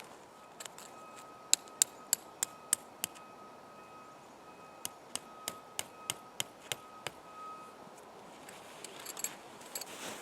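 Tent stakes being hammered in: two runs of sharp knocks, about three a second.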